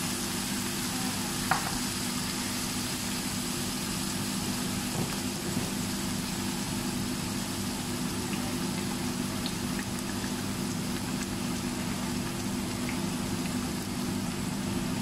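Chicken and vegetable stir-fry sizzling steadily in a frying pan, over a steady low hum. One light click about a second and a half in.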